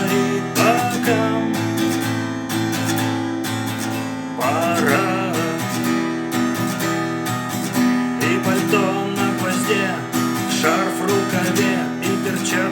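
Acoustic guitar strummed steadily, with a voice singing over it in places.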